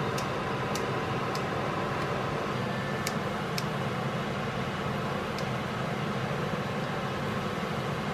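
Kitchen scissors snipping through cooked rice vermicelli noodles in a pot, a handful of short, sharp snips at irregular intervals over a steady low hum.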